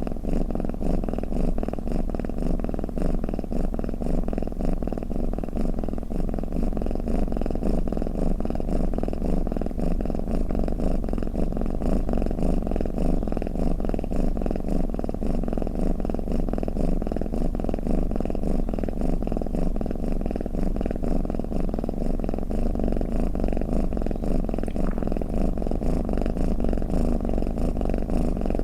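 Domestic cat purring steadily and without a break, a fast pulsing purr that sits mostly low in pitch.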